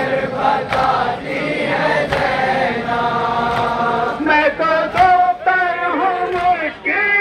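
Men reciting a noha, a Shia lament, in chorus, with a sharp slap of matam (chest-beating) about every second and a half.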